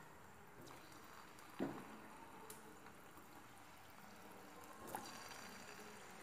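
Faint sizzle of a shallow layer of hot refined oil in a kadhai as bread gulab jamun dough balls go in one at a time, with two soft plops: one about a second and a half in, one near five seconds.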